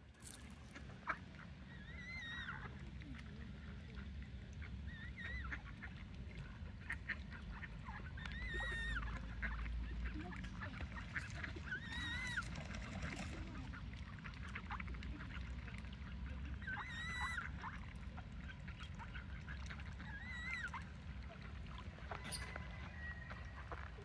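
Ducks calling on and off, short calls every second or few seconds, over a steady low rumble.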